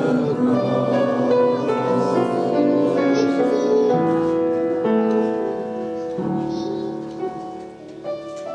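Church worship music played on keyboard, slow held chords changing every second or so, growing quieter toward the end.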